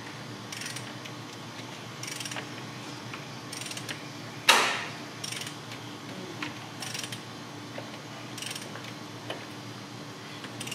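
Hand ratchet clicking in short strokes about every second and a half, with one louder metallic knock about four and a half seconds in.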